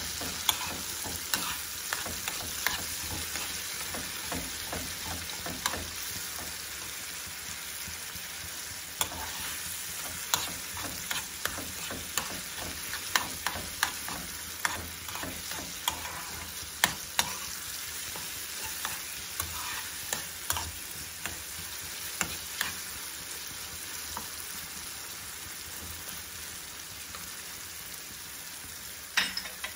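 Tomato paste and tomatoes sizzling in butter in a frying pan while a spoon stirs them, knocking and scraping against the pan at irregular intervals.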